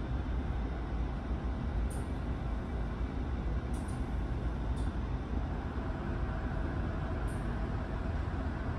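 Steady low rumble of a large car ferry's engines heard from inside the ship, with a few faint light clicks.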